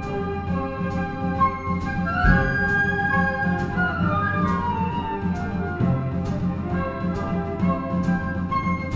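A flute orchestra playing: held and moving flute lines over steady low notes, with a sharp tick about twice a second keeping the beat.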